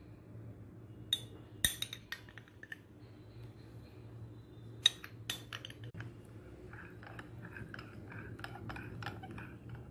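A metal spoon clinking against a cup as custard powder is spooned into cold milk, a few separate taps, then a quicker run of small clinks and scrapes as the mixture is stirred.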